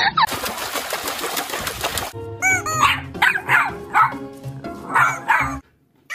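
A dog barking in short yips, several times over about three seconds, over background music; the sound cuts off shortly before the end.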